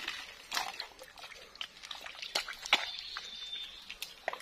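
Footsteps squelching through wet mud, with scattered clicks and crackles of dry palm fronds and twigs underfoot. A short, thin, high steady tone sounds about three seconds in.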